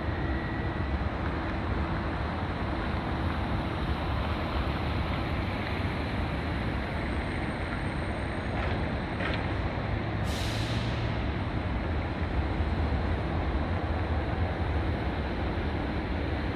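Jet engines of a Boeing 767-300ER freighter at takeoff power, heard from a distance as a steady deep rumble. A short hiss cuts in about ten seconds in.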